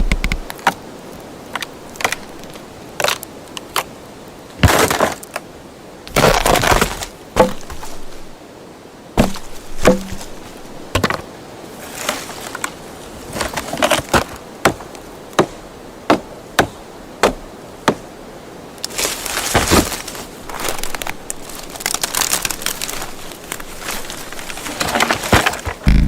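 Wood cracking and breaking: a string of sharp single snaps and knocks, broken up by a few longer crunching, splintering bursts lasting about a second each.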